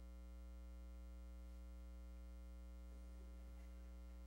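Near silence with a steady electrical mains hum.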